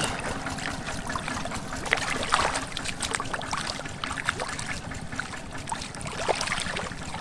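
Shallow swamp water sloshing and splashing, with frequent short, sharp splashes throughout.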